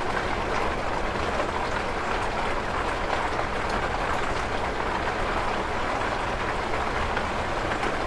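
Train running on its tracks: a steady, even rumble with a constant low hum beneath it.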